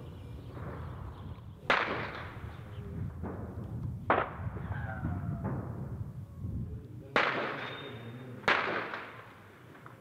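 Four single gunshots a couple of seconds apart, each followed by a long echo, over a steady low rumble.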